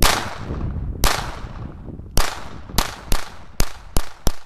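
Ruger SR22 semi-automatic .22 LR pistol firing tracer rounds: eight sharp shots, each with a ringing echo, the first ones about a second apart and the later ones quickening to about three a second. The pistol cycles every round.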